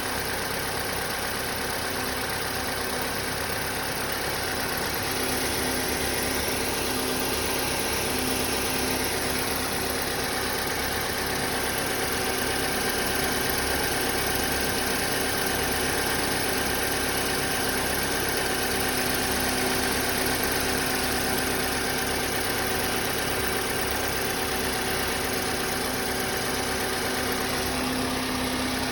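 Opel A16XER 1.6-litre four-cylinder petrol engine idling cold, with a steady whistle from the accessory drive belt's tensioner pulley.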